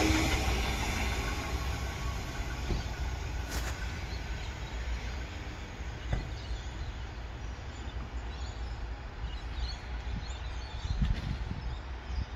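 Electric passenger train pulling away and fading over the first couple of seconds, leaving a low steady rumble. Faint bird chirps come in late on.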